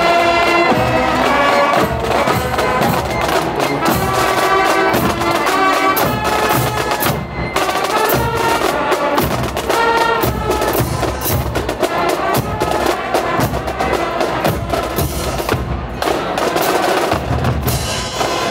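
A marching band playing: brass and saxophones carry a tune over snare and bass drums. Later the drums come to the fore as the drumline passes.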